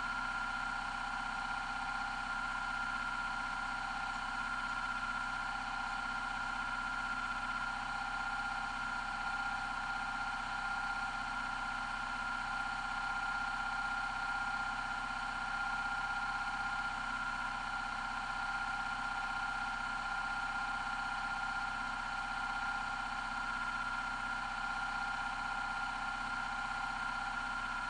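A steady, unchanging machine hum with a constant whine that does not vary in pitch or level.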